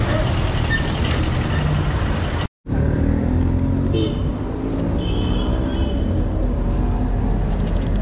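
Street traffic and road noise heard from a moving bicycle, with heavy low rumble from wind on the camera's microphone. The sound cuts out for a split second about two and a half seconds in, then carries on a little quieter.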